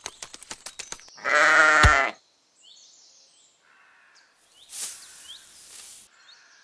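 A sheep bleats once, a loud wavering call just under a second long, about a second in. A few clicks come before it, and a short rustling hiss follows about five seconds in, with faint high chirps repeating in the background.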